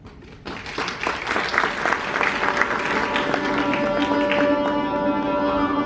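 Audience applauding, then a đàn bầu (Vietnamese one-string monochord) begins a lullaby with long held, gliding-capable notes as the clapping dies away about two-thirds of the way in.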